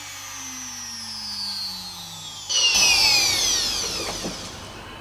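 Trim router spindle on a hobby CNC machine winding down after being switched off, its whine falling steadily in pitch. About two and a half seconds in, a louder high whine starts abruptly and also falls away, fading out within about two seconds.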